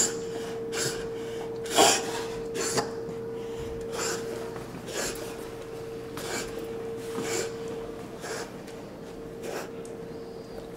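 A dog breathing heavily: a noisy breath about once a second, the loudest about two seconds in.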